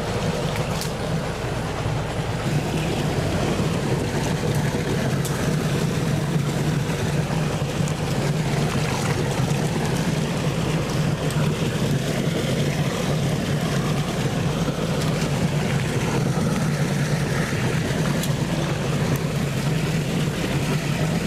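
Engine-driven water pump running steadily, a constant low drone as it pumps down a fish pond.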